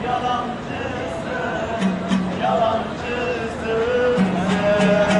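Music with a singing voice playing over the steady murmur of a crowd, with a few sharp clicks.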